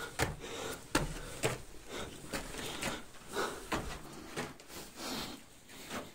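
Footsteps scuffing and crunching on a gravelly rock floor, roughly two steps a second.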